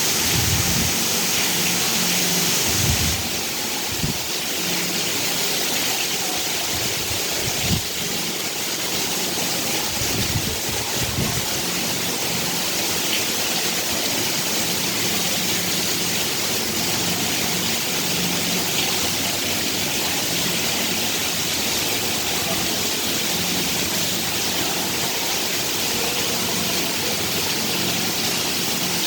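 Heavy rain pouring steadily, a dense even hiss, with a few low thumps in the first dozen seconds.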